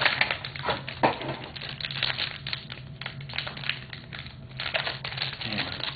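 Wrapper of a 2007 Bowman Sterling baseball card pack crinkling and tearing as it is pulled open by hand, a quick irregular run of crackles and rips.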